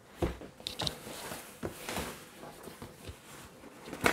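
Cardboard motherboard box and its foam lining being handled and opened: scattered soft taps, scrapes and rustles.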